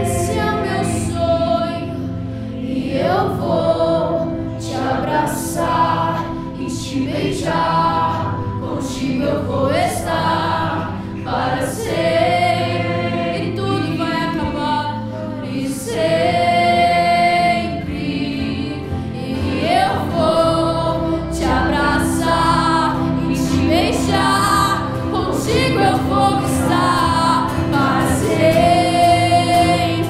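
Live acoustic worship music: a woman sings lead over acoustic guitar and keyboard, with other voices singing along.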